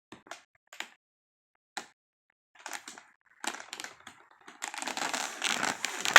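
A few sharp clicks and taps, then packaging rustling and crinkling as it is handled, growing denser and louder from about halfway in.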